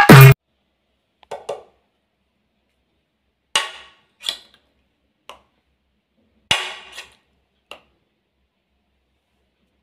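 Sharp clicks and knocks of a metal utensil against a plate, about seven in all and spaced irregularly, with the loudest two a few seconds apart. Background music cuts off at the very start.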